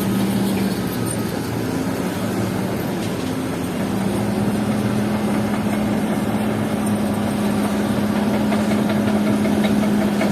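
Bulldozer's diesel engine running steadily with a constant low hum. Its note drops back about a second in and comes up again at about four seconds.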